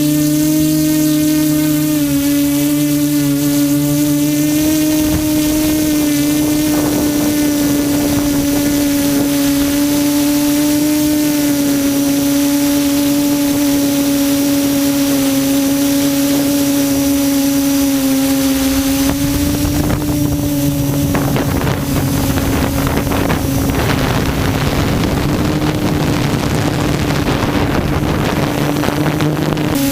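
QAV400 quadcopter's electric motors and propellers running steadily in flight, a loud buzzing drone whose pitch shifts only slightly. From about 19 seconds in, rough wind noise on the microphone grows over it.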